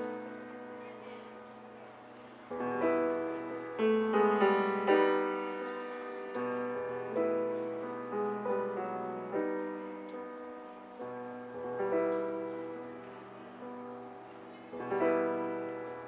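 Grand piano played solo in classical style: chords are struck and left to ring and die away. The playing swells to loud chords several times, with quieter passages between.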